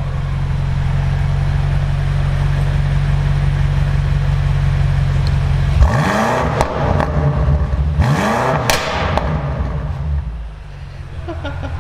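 2018 BMW M5 (F90)'s twin-turbo 4.4-litre V8 idling steadily, then revved hard twice, about six and eight seconds in. Each rev climbs quickly and drops back to idle.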